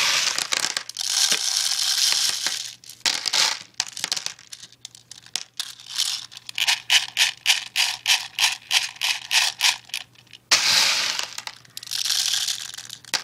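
Handfuls of plastic airsoft BBs poured into a high-capacity magazine's loading slot, a rattling pour at the start and again near the end. Between the pours come scattered clicks, then a run of quick, evenly spaced rattles, about three or four a second.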